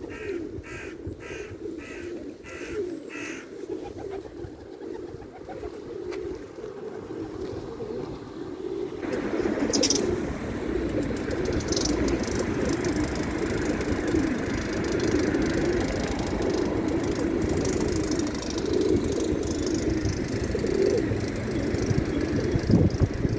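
A flock of pigeons cooing, their low warbling calls overlapping without a break. A quick run of about six short higher notes sounds at the start, and a steady background noise rises under the cooing about nine seconds in.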